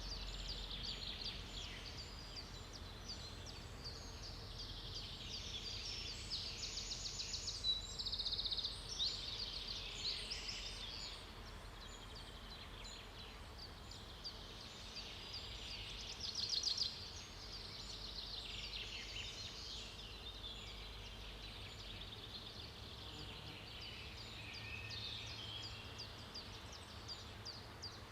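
Forest daytime ambience: several songbirds chirping and trilling over a low background rumble, with louder rapid trills about a third of the way in and again past the middle.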